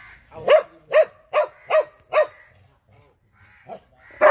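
Sarail hound barking: five loud barks, about two a second, in the first half, a softer bark near the end, and a quick run of barks beginning at the very end.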